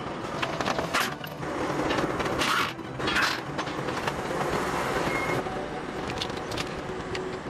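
Work noise from a truck being dismantled: machinery running steadily under metallic clanks and scrapes. The loudest clanks come about a second in and again between two and a half and three and a half seconds in.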